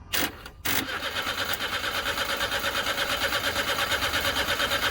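2008 Mitsubishi Lancer's starter motor, jumped directly across its terminals, cranking the engine. Two short bursts as the terminals are bridged, then steady rhythmic cranking from about a second in, without the engine catching. The mechanic takes this for an immobilizer fault blocking the start.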